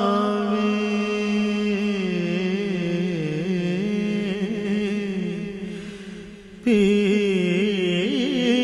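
A man's voice singing a Punjabi Sufi devotional song, holding one long note with a wavering pitch that slowly fades away about six seconds in. The voice then comes back in suddenly and loudly on a new phrase near the end.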